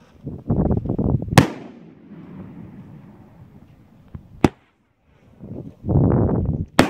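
An 8-shot Roman candle firing its shots: twice, a second-long rush of noise ends in a sharp bang, about a second and a half in and again near the end, with a single sharp crack in between.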